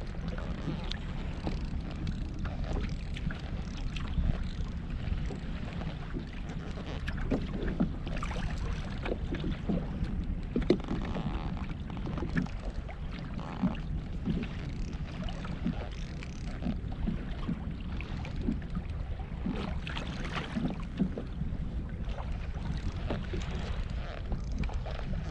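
Steady low wind rumble on the microphone aboard a fishing kayak at sea, with scattered small clicks and knocks throughout.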